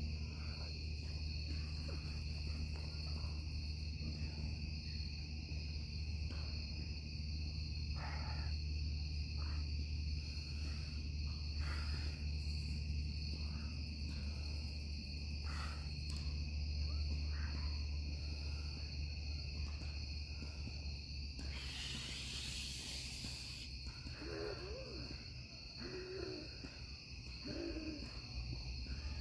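Steady evening chorus of night insects, two high even drones, over a low steady rumble. A short hiss comes about 22 seconds in, and a few faint wavering low sounds follow near the end.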